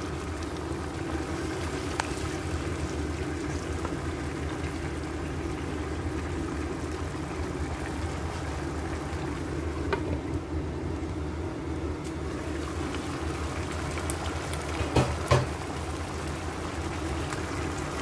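Chicken, carrots and celery simmering in tomato sauce in a non-stick pan: a steady bubbling with a constant low hum underneath. A few short clinks of the glass pan lid break in, one about ten seconds in and two louder ones close together about fifteen seconds in.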